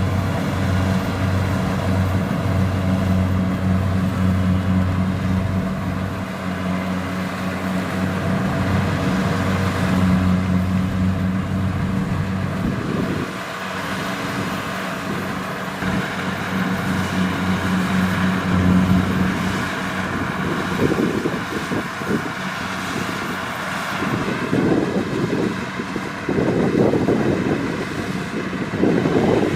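Kubota DC-70 Plus rice combine harvester running under load, a steady low engine drone that turns rougher and more uneven about two-thirds of the way through.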